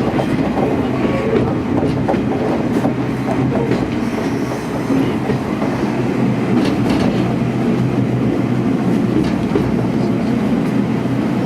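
Onboard a KiHa 47 diesel railcar on the move: a steady engine drone with wheels clicking over the rail joints now and then.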